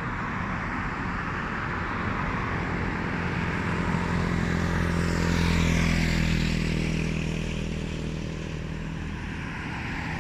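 A motor engine passing by outdoors: it swells to its loudest about halfway through, its pitch sliding down as it goes past, then fades.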